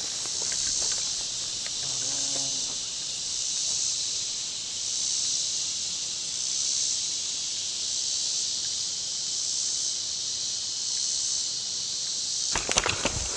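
Chorus of summer insects: a steady high buzz that swells and eases every second or two. A short burst of clicks and rustling near the end.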